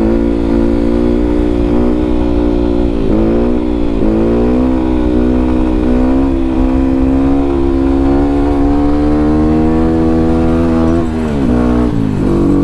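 Yamaha WR155R's single-cylinder engine running through an aftermarket Qala Performance exhaust while riding, its pitch dropping and climbing again twice as it shifts up, holding fairly steady, then falling near the end as the throttle closes.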